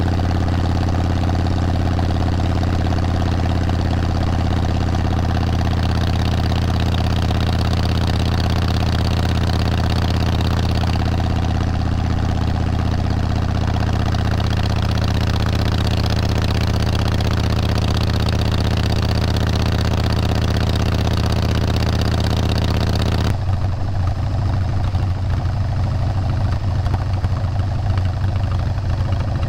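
A vehicle engine running steadily as a deep, even drone under a hiss. About three-quarters of the way through, the hiss drops away abruptly and the engine carries on with a rougher, pulsing low note.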